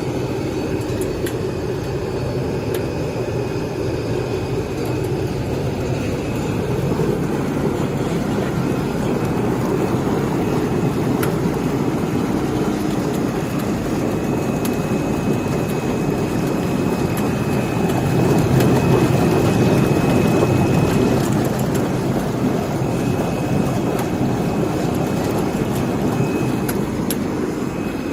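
Chicken processing line machinery running steadily: a loud, continuous mechanical noise with a thin, steady high whine and occasional light clicks.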